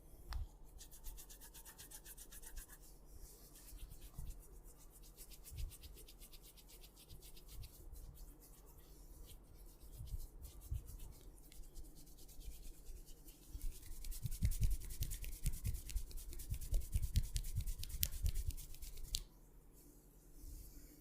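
Hands rubbing a person's head and hair close to the microphone during an Indian head massage, making a fast, dense crackling rub. It grows louder in the second half, with soft low bumps, then stops a couple of seconds before the end.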